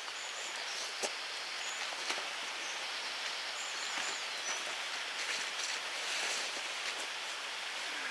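Woodland ambience: a steady hiss like light rain or wind through leaves, with a few sharp ticks and several brief, thin, high bird notes.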